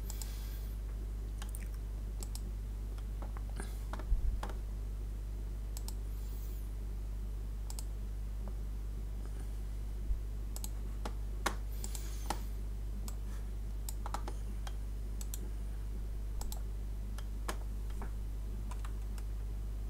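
Scattered computer mouse clicks over a steady low hum, with a louder knock about four seconds in.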